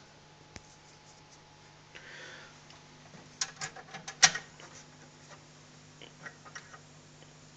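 Vintage console record player with a steady low hum under it, and a cluster of sharp mechanical clicks and knocks about three to four and a half seconds in as its record-changer control and tonearm are worked by hand. A few lighter clicks follow about six seconds in.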